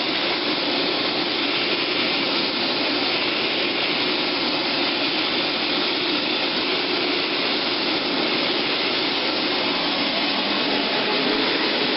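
Hoover SteamVac carpet cleaner running with its hose attachment: a steady suction motor noise as the hose tool sucks up sprayed cleaning solution.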